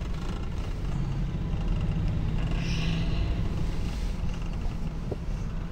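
Vehicle engine and road noise heard from inside the cabin while driving: a steady low drone.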